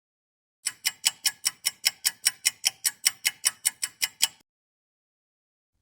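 Clock-ticking countdown sound effect: about twenty even ticks, roughly five a second, that stop after about three and a half seconds. It marks the guessing time before the quiz answer.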